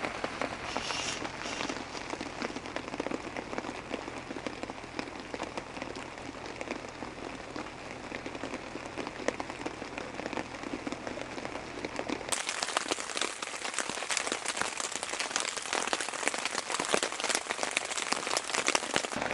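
Pouring rain, with many separate drops ticking on a tarp overhead. About twelve seconds in, the rain sound turns abruptly brighter and hissier.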